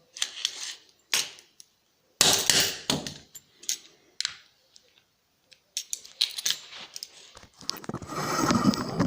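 Small metal hard-drive parts and tools clinking and clattering as they are handled during disassembly, in irregular clicks and short rattles, with a longer rattle near the end.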